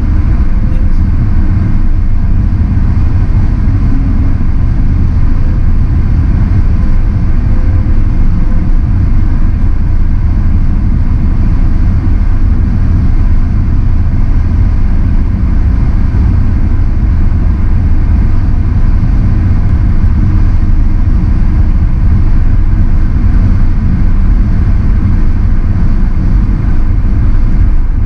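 Steady road and tyre noise of a car driving at highway speed, mostly a low rumble with no sudden events.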